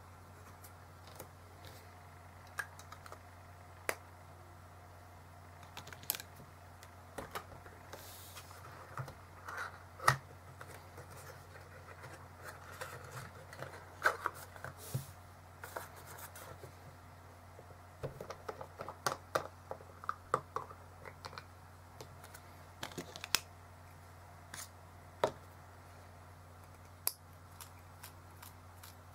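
Unpacking and opening a bottle of pen ink by hand: scattered clicks, taps and rustles of cardboard packaging, with the bottle and its cap set down on a desk, over a steady low hum.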